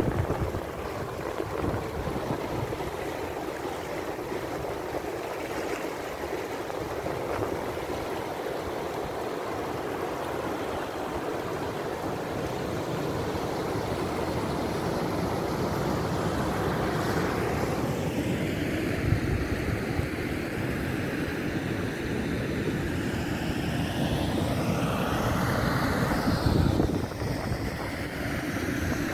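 Rushing water of a fast mountain river running over rapids, a steady loud noise. Wind buffets the microphone at times, mostly in the second half.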